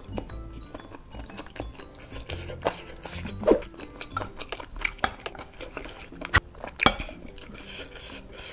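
Metal fork and spoon clinking and scraping against a ceramic bowl while cutting and scooping meatballs in broth, with chewing in between. The clinks come as scattered sharp ticks, two of the loudest close together in the second half.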